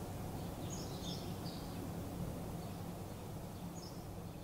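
Quiet rural outdoor ambience: a steady low hum with a few short, high bird chirps, a cluster about a second in and another near the end.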